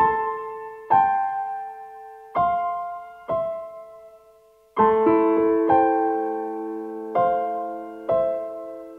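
Slow solo piano music: single struck notes ringing out and fading, then fuller chords from about halfway through.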